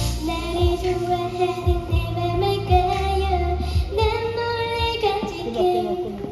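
A child singing a song over instrumental accompaniment, holding long notes in the melody.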